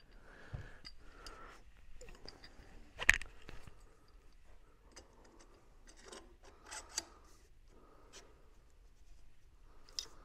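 Metal headlight mount brackets being worked by hand onto inverted fork tubes: light rubbing and scraping with scattered small clicks, and a sharp knock about three seconds in. The brackets are a tight fit on the tubes.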